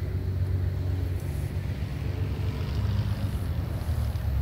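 Low, steady rumble of an approaching diesel train locomotive.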